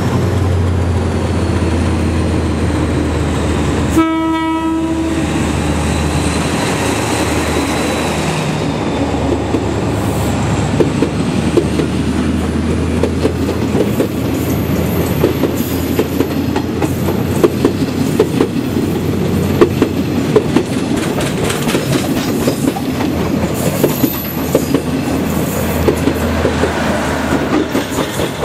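KTM Class 24 diesel-electric locomotive 24101 sounds a short single-note horn about four seconds in as it brings its passenger train through, over a low diesel engine drone that fades out around the middle. The coaches then pass with a fast, steady clickety-clack of wheels over rail joints.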